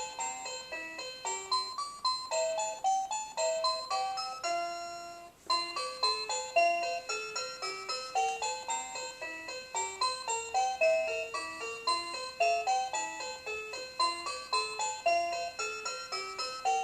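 Electronic toy melody from a VTech Winnie the Pooh Roll 'n Learn Tree: a bright tune of quick single notes. It stops briefly about five seconds in, then starts again.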